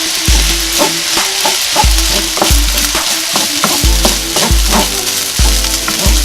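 Rice frying in a hot pan with soy sauce, a steady sizzle with the clicks and scrapes of a spatula stirring it. A deep, regular bass beat from background music runs underneath.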